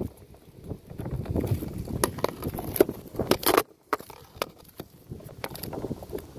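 Handling noise from a phone being moved and set down on the grass: scattered knocks, clicks and rubbing on the microphone, with a brief drop to near silence just past the middle.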